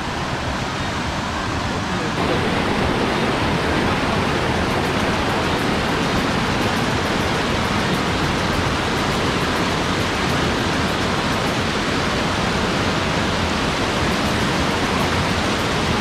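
River water rushing steadily, a little louder from about two seconds in.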